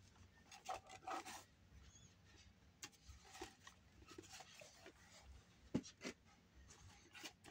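Faint handling noise of a cardboard toy box: hands rubbing and sliding over the packaging as it is turned, with light taps and one sharper knock about six seconds in.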